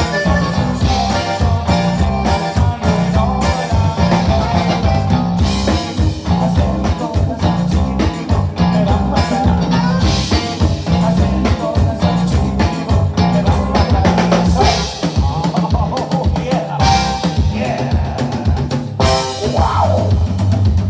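Live conjunto band playing: button accordion over acoustic guitar, electric bass and drum kit, keeping a steady dance beat.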